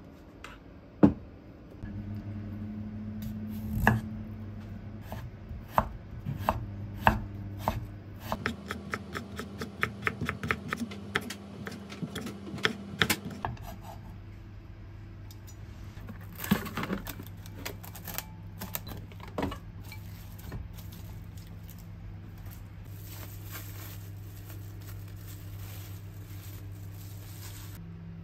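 Kitchen knife chopping carrots into thin strips on a wooden cutting board: separate knocks at first, then a quick, even run of chops at about five a second, then sparser cuts. A steady low hum runs underneath.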